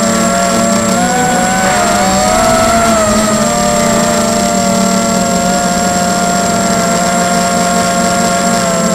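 Tarot 250 racing quadcopter's brushless motors and propellers buzzing in flight, heard close up through its onboard camera. The motor pitch wavers about one to three seconds in, then holds steady, over a constant high whine.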